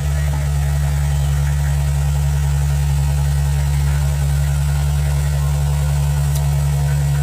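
Excavator engine running at a steady speed, an even deep hum that holds the same pitch throughout.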